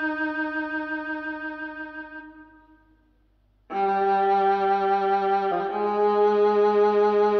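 Violin music played through an Icon Audio MFV 3 Super floorstanding speaker. A held, wavering violin note fades away over about three seconds, there is a brief silence, and then a new track starts abruptly with sustained notes that change pitch about two seconds later.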